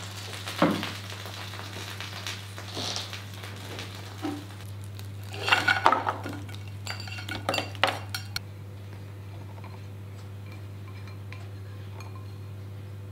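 Kitchen clatter: a metal baking tray is set down on a countertop with a knock, then a ceramic bowl clinks against the tray as vegetables are tipped out, several clinks in a row around the middle. After that only a steady low hum remains.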